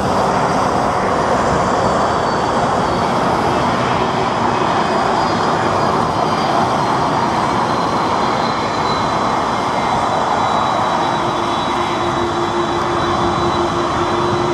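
Airbus A330 airliner's twin jet engines running as it rolls out after landing: a steady, loud roar with a high whine that slowly falls in pitch as the engines spool down. A lower steady tone joins about eleven seconds in.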